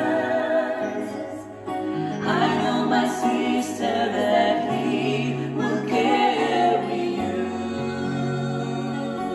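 Three voices, two women and a man, singing in harmony over an electronic keyboard playing held chords and bass notes, with a brief dip in loudness about a second and a half in.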